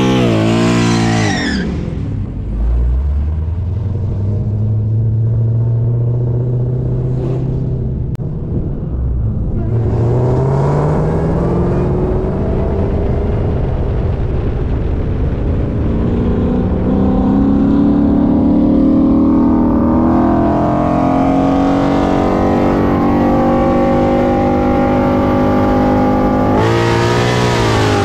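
Manual Hellcat's supercharged V8, fitted with an upgraded pulley and headers, revving up and down a few times at first, then running at part throttle with its pitch climbing slowly in two stretches. Near the end it goes to full throttle and pulls hard, the note rising quickly and getting much fuller.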